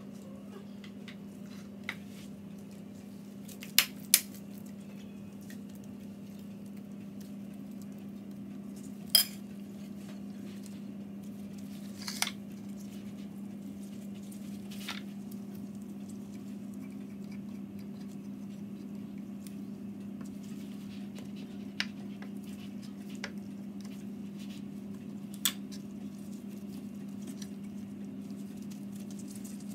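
Light kitchen handling noise as gloved hands fold spring-roll wrappers on a plate: scattered sharp taps and clinks of plate and utensils, the loudest a quick pair about four seconds in, over a steady low hum.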